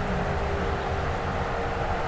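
Tornado warning siren sounding one steady, held tone that wavers slightly in pitch, over a constant rushing noise.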